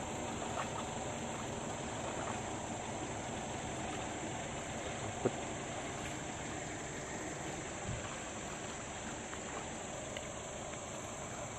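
Steady outdoor background noise: a low rumble under a constant high-pitched drone. A single sharp knock comes about five seconds in.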